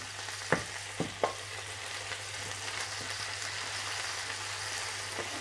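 Sliced green peppers frying in oil in a pan, a steady sizzle, with two sharp knocks about half a second and a second in as a knife scrapes chopped tomato and herbs off a wooden board into the pan.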